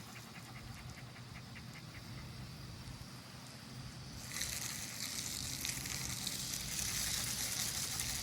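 Garden hose spraying water: a steady hiss of spray that comes on suddenly about four seconds in and keeps going.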